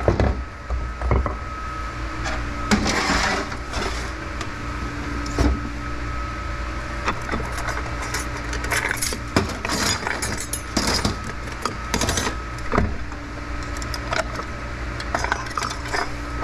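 Steel parts of a TH350 automatic transmission clinking and knocking as the intermediate clutch plates are worked out by hand. The sharp clinks come at irregular moments over a steady background hum.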